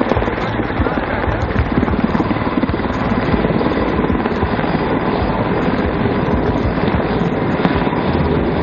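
Mil Mi-26 heavy-lift helicopter flying close by in a display manoeuvre: the loud, steady chop of its eight-blade main rotor together with its engine noise.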